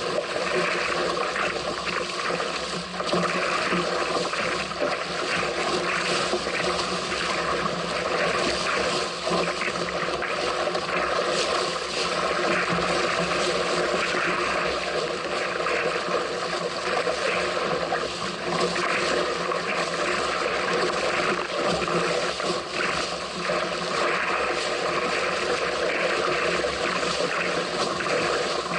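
Strong wind buffeting the microphone and water rushing and splashing past a small sailing craft under way at speed, a steady noise with no break.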